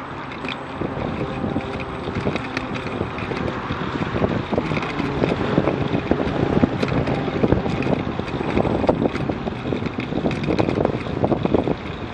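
Wind buffeting the microphone of a camera on a moving bicycle, growing louder about four seconds in as the bike speeds up, with many short knocks and rattles from riding over the path.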